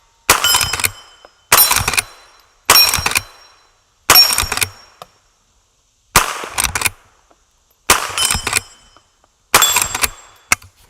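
Henry lever-action .22 carbine fired seven times at a slow, uneven pace, the shots about one and a half to two seconds apart, each with a short ringing tail.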